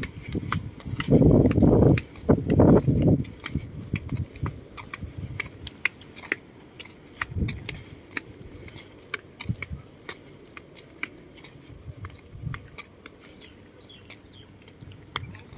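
Footsteps crunching and clicking on gravel and paving during a walk, with irregular small clicks several times a second and a few muffled low rumbles in the first three seconds.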